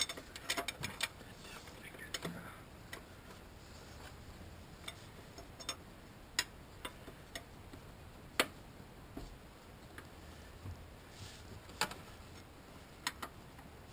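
Sparse, irregular light clicks and taps of hand tools and metal fittings being handled during engine work, about one every second with a few quick pairs, over a faint background.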